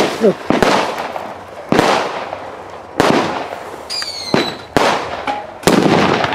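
Firecrackers going off: about six sharp bangs, each trailing off, with a brief whistling tone about four seconds in.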